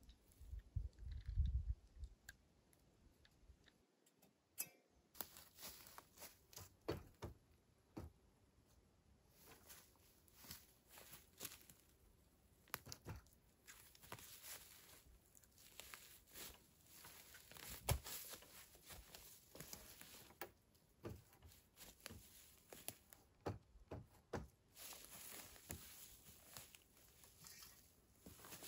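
Faint, irregular rustling and crackling with scattered sharp clicks: handling noise as a tarp shelter is rigged. A few low thumps come in the first couple of seconds.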